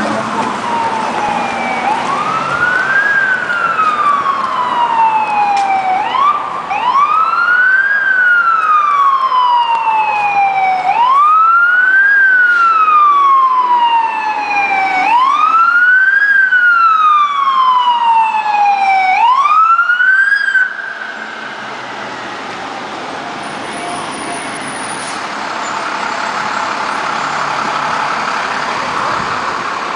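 Fire engine siren wailing, each cycle rising quickly and falling slowly over about four seconds, five times over. It cuts off about twenty seconds in, leaving steady engine noise.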